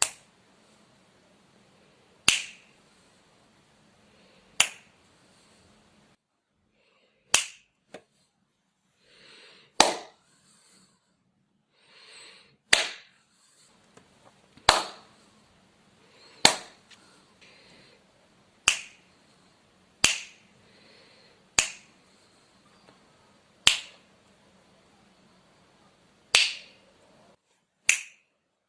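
A series of sharp snaps or clicks, about a dozen, coming roughly every two seconds, each dying away quickly.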